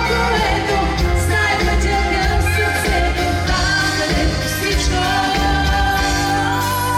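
Bulgarian pop song: a vocalist sings the chorus over a full band with a steady, strong bass and beat.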